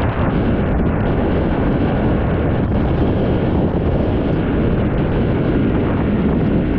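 Steady, loud wind buffeting the microphone over the rumble of a moving vehicle.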